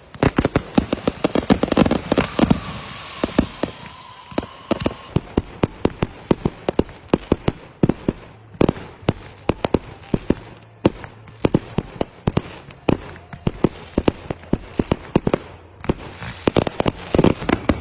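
Fireworks going off: a dense, irregular run of sharp bangs and pops, several a second, with a faint thin whistle a few seconds in.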